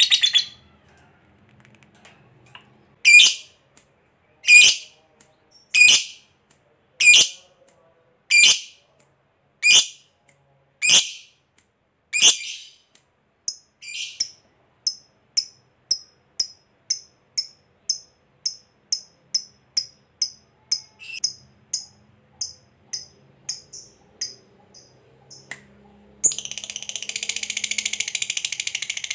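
Lovebird calling. A rapid chattering trill cuts off at the start, followed by eight sharp, loud falling calls about a second and a half apart, then a run of softer short chips about two a second. Near the end a long, loud chattering trill, the 'ngekek' song, starts again.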